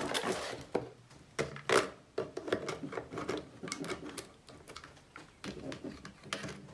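Plastic clicks and knocks as a scope is handled and fitted onto the top rail of a toy gel-ball sniper rifle, with the sharpest snaps between one and two seconds in.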